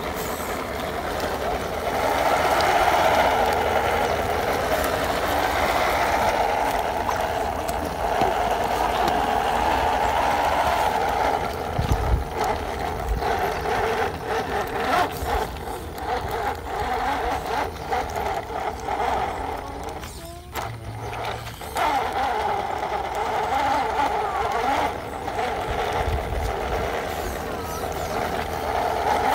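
Electric motor and gears of a ZP 1001 RC crawler whining as it drives through muddy puddles, with water splashing around the wheels. The whine swells and eases with the throttle and dips briefly about two-thirds of the way through.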